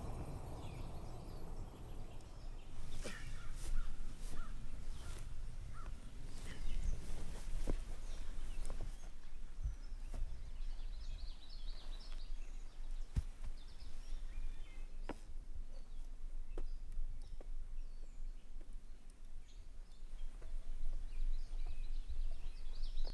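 Outdoor ambience with birds calling, over a steady low rumble, broken by scattered sharp clicks and knocks.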